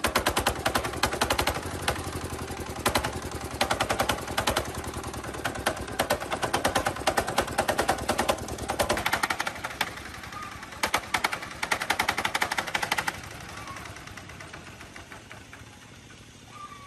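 Restored D15 single-cylinder diesel engine running with a rapid, sharp exhaust beat, surging louder in bursts as it is revved, then dropping back to a quieter level about thirteen seconds in.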